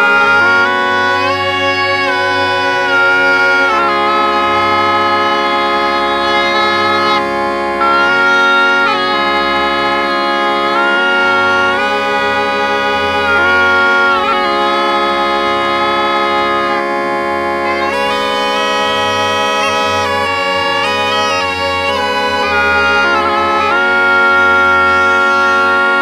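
Bagpipe music: a melody played over several steady held drones.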